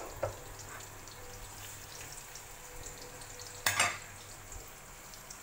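Sliced onion and garlic frying in oil in a wok, a light steady sizzle with crackles. A metal spatula knocks against the wok, once lightly at the start and once loudly about three and a half seconds in.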